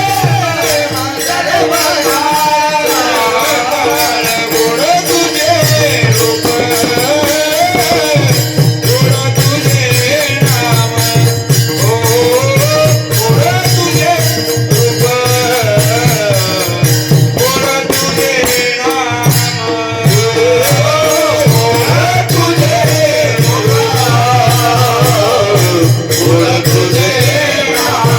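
Varkari bhajan music: a singer carries a gliding traditional melody over steady held notes, with pakhwaj (mridang) drumming and small hand cymbals keeping a fast rhythm. The deep drum strokes drop out for a moment a few times, around 5, 8 and 20 seconds in.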